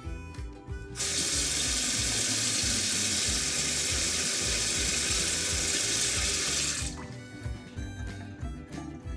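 Bathroom faucet running into a sink: turned on about a second in, a steady rush of water for about six seconds, then shut off. Background music with a steady beat runs underneath.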